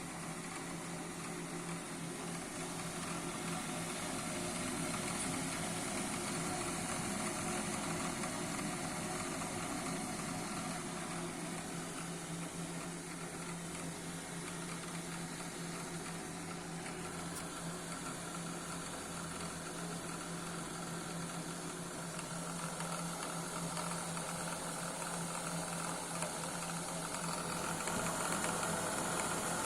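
Navien Deluxe 24k wall-hung gas boiler running with a steady hum and a continuous knocking from the area of its circulation pump, a fault that has not gone away after start-up.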